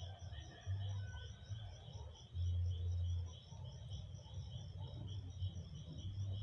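Insects chirping in a steady, even pulse, about three or four chirps a second at two high pitches, under a low, uneven rumble on the microphone.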